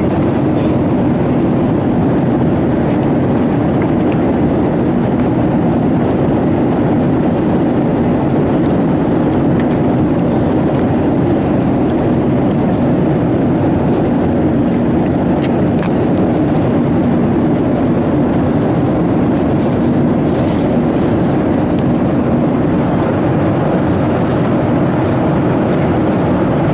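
Steady drone of an airliner cabin in flight: a constant engine and airflow rumble with a low hum running through it, and a few faint clicks.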